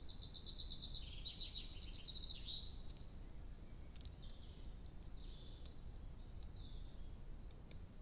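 A small songbird singing: a fast run of rapid repeated high notes over the first couple of seconds, then several shorter high phrases, over a steady low background rumble.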